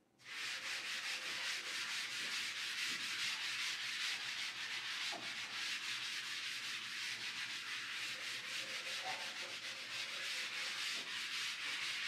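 Continuous dry scratching of quick writing strokes on a surface, a dense even rasp made of many rapid strokes, starting abruptly.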